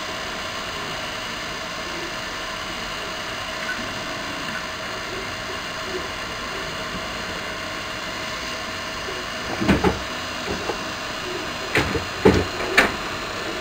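3D printer running during a print: a steady hum of fans and motors with several fixed tones. A few short knocks come near the end.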